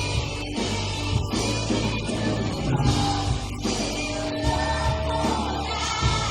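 Live worship band playing a rock-style song, with electric guitar, bass and drums.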